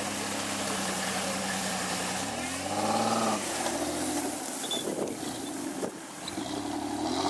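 Off-road 4x4's engine running at a steady speed, then revved up and back down about two and a half seconds in, and again near the end.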